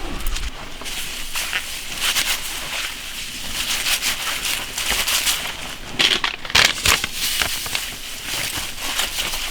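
Sun-wilted napa cabbage leaves rustling and crackling as they are handled, in irregular crisp scrapes, with a louder cluster about six seconds in.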